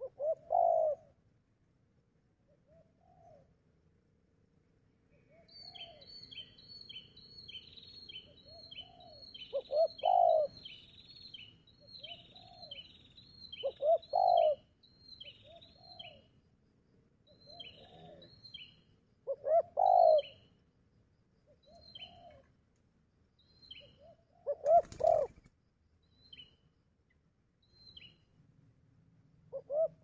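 Spotted doves cooing, with a loud coo phrase every four to six seconds and quieter coos in between. From about five seconds in, another bird gives a quick series of short high chirps that slow and thin out, and a brief sharp noise cuts across near the end.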